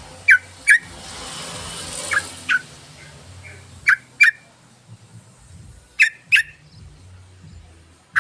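Yellow-vented bulbul calling: short, sharp chirps given in pairs, one pair about every two seconds.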